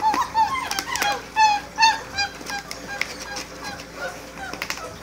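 Great Dane puppies, about four weeks old, whimpering and squeaking in many short high calls that come thickest in the first two seconds and thin out after, with a few sharp clicks among them.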